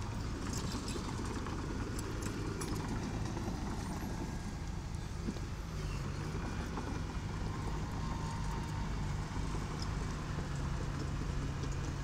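Diesel engine of a small bulldozer running steadily, with scattered light clanks and knocks over it; the engine note shifts slightly about six seconds in.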